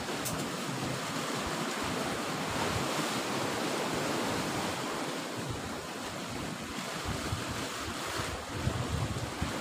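Sea surf washing around the rocks at the foot of a cliff: a steady rushing wash with a low rumble, swelling slightly a couple of seconds in.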